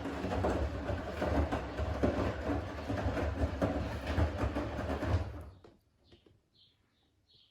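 Siemens front-loading washing machine in its main wash (easy-care 40 °C programme with extra water): the drum turns, tumbling and sloshing the laundry in water, then stops a little over five seconds in, leaving only faint drips and ticks.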